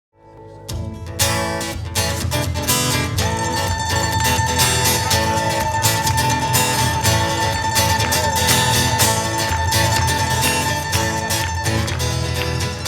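Ukulele music with plucked strings over a steady bass. It rises out of silence in the first second, and one long high note is held through most of it.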